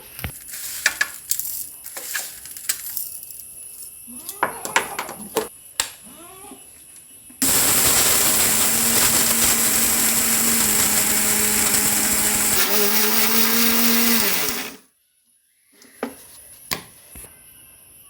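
Electric mixer grinder (mixie) dry-grinding rice, black pepper and cumin into powder. The motor starts about seven seconds in with a loud, steady whirring, and its pitch drops as it is switched off about seven seconds later. Before it starts there are clinks and knocks as the ingredients go into the jar.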